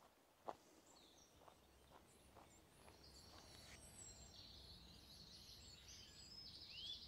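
Faint woodland birdsong: small birds chirping and trilling in quick high notes from about three seconds in, with two arching call notes near the end. A few soft knocks come in the first couple of seconds, the loudest about half a second in.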